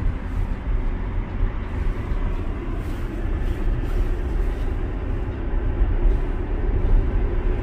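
Road and wind noise inside a moving Tesla: a steady low rumble with no engine note.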